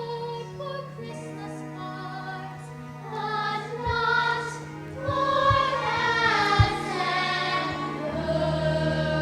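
Stage musical number: a cast of young performers singing with musical accompaniment, the voices growing fuller and louder partway through. A few dull thumps sound under the singing, the loudest about two-thirds of the way in.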